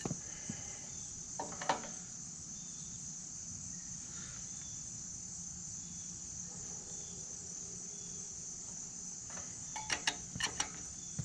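A steady, high-pitched insect chorus, with a few sharp clicks and knocks about a second and a half in and a quick cluster of them near the end.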